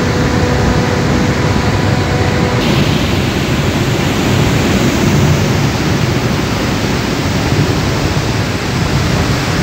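Steady, loud roar of water jetting out of Tarbela Dam's Tunnel 5 outlet and crashing into a plume of white spray.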